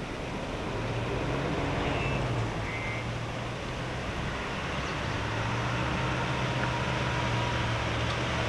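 Steady outdoor background noise with a low motor hum, as of a distant vehicle or machine, that strengthens about a second in and again around five seconds. Two brief faint high chirps come near two and three seconds in.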